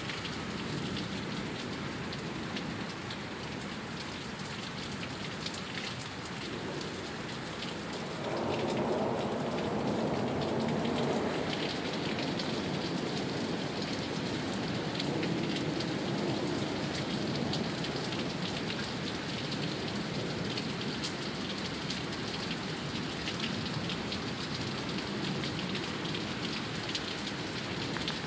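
Heavy downpour of rain with large raindrops, many small drop impacts heard through it. About eight seconds in the rain grows louder and stays heavier.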